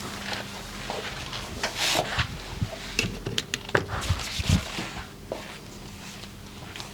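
Massage hands rubbing and patting on skin and clothing: uneven rustling with short clicks and a few soft thumps, the thumps loudest around four and a half seconds in.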